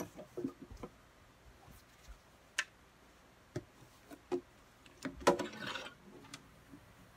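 Scattered light knocks and clicks of an acoustic guitar being handled and moved about, with a louder knock and a brief scuffle about five seconds in.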